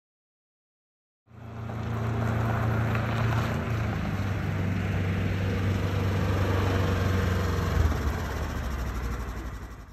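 Polaris Ranger XP side-by-side's engine running steadily, coming in about a second in after dead silence.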